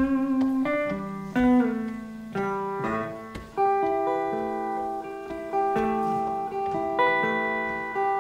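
Slow instrumental introduction to a song: plucked notes and chords, each struck sharply and left to ring and fade.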